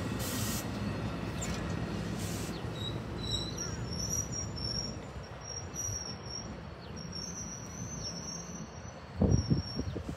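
Bilevel commuter coaches of an electric NJ Transit train rolling away, the wheel rumble and hum fading over the first few seconds, with two brief hisses. Birds chirp as the rumble dies, and a few sharp low thumps near the end are the loudest sound.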